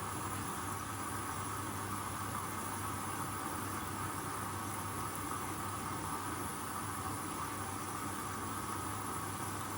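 Hoover Custom Vision washing machine running through its rinse, a steady hiss with a low hum underneath.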